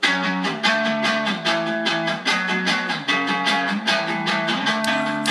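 Solo guitar playing the intro of a song, a steady run of picked or strummed chords a few times a second, without bass or drums.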